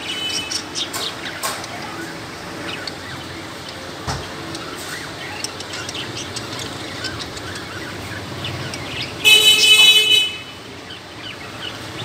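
Cockatiels chirping in short, scattered calls, with one loud, steady, buzzy tone lasting about a second around nine seconds in.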